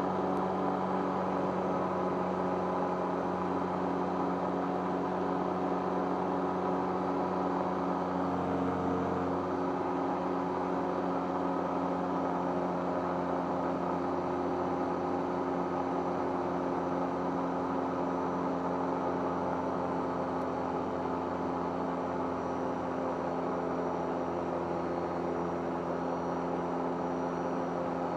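Rotax 912UL four-cylinder engine of a Chinook Plus 2 ultralight running steadily at constant speed in flight, with no misfire or stumble.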